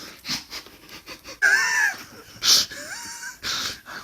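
A person's breathy, wheezing vocal sounds: short huffs with a couple of squeaky, wavering pitched squeals, one rising near the end.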